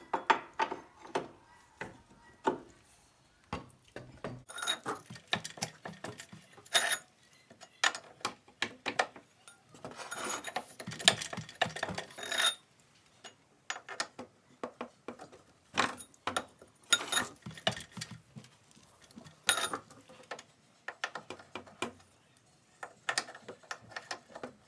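Irregular metallic clinks and clanks of a 17 mm Allen wrench and a steel pipe cheater bar. They are working an ATV swing-arm pivot bolt loose, with short gaps between the knocks.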